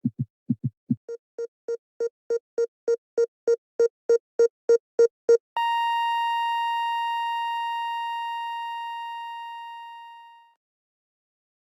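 Heartbeat sound effect: a few paired lub-dub beats, then a heart-monitor beep about three times a second that grows steadily louder. Then a flatline: one long unbroken monitor tone, the sign that the heart has stopped, fading away over about five seconds.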